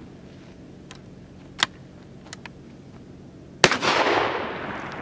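A few light clicks from the gun's action, then a single shot from a Henry single-shot 12-gauge break-action shotgun about three and a half seconds in, its echo rolling away for over a second.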